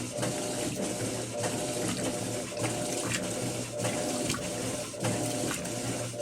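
Electrolux LF10 Turbo Limpeza top-load washing machine running with a full load of blankets: water sloshing and churning over a steady motor hum.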